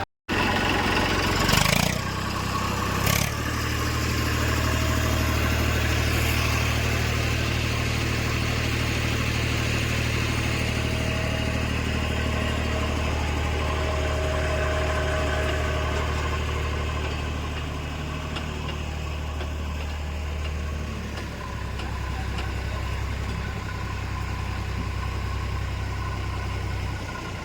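Diesel engine running steadily, with two sharp knocks near the start. About twenty seconds in, the engine note drops and becomes quieter.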